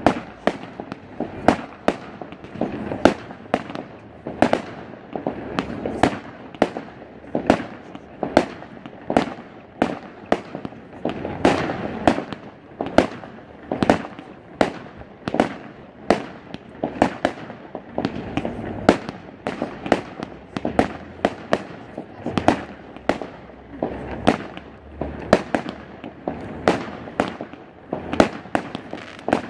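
Fireworks display: aerial shells going off in a steady, uneven run of sharp bangs, about one or two a second.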